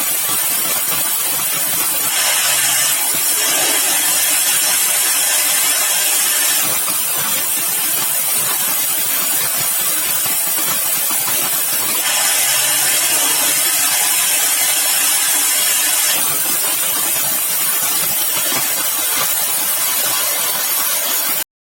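Sawmill machinery running, a steady hissing noise that swells twice for about four seconds each, then cuts off suddenly near the end.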